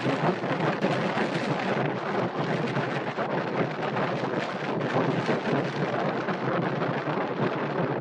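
Strong wind buffeting a compact camera's built-in microphone: a loud, unbroken rushing noise that drowns out everything else.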